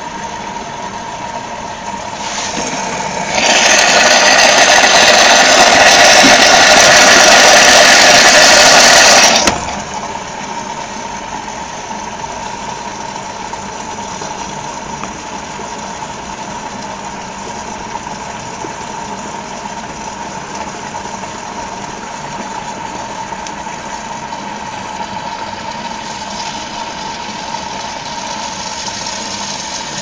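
Whirlpool AWG 371 front-loading washing machine running through a rinse, its motor turning the drum with a steady whine. From about three seconds in to about nine seconds a loud rushing hiss of water sets in and cuts off suddenly, typical of water filling the drum for the rinse.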